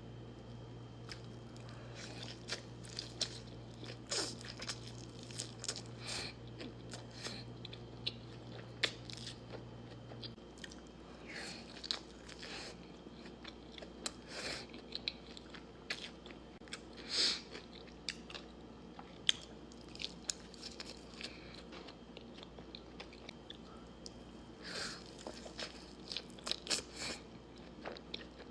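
Close-up eating sounds of Wingstop crispy fried chicken: repeated crunchy bites and wet chewing, with scattered sharp crackles. A low steady hum underneath stops about ten seconds in.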